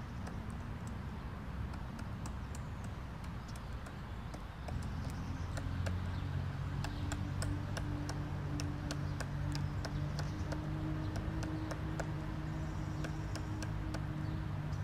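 Black woodpecker chiselling into a tree trunk: irregular sharp knocks of its bill on the wood, a few a second. A low steady hum comes in about five seconds in.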